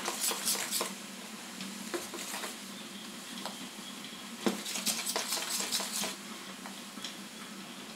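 Hand stirring a runny dhokla batter in a steel bowl, mixing in the Eno fruit salt and buttermilk just added: soft wet stirring with scattered light clicks of the steel bowl, busiest from about four and a half to six seconds in.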